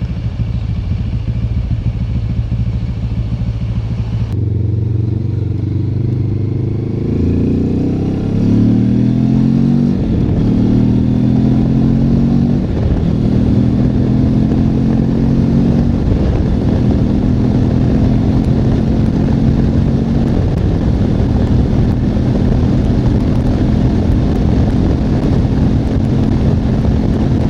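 Benelli TRK 702 X parallel-twin engine idling, then pulling away about seven seconds in. The revs climb and drop at each upshift, and then the engine runs steadily at low speed with a few more gear changes.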